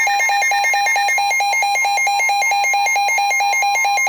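Emergency weather alert tones: a loud, rapid electronic beeping, about eight beeps a second, over a steady tone near 1 kHz that matches the NOAA Weather Radio warning alarm tone. It signals an incoming warning, here a flash flood warning.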